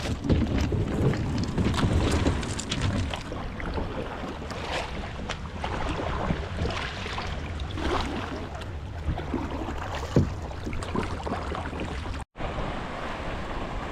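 Wind buffeting the microphone over water lapping and splashing around a kayak on the sea, with the low rumble of the wind strongest in the first few seconds. The sound breaks off briefly about twelve seconds in.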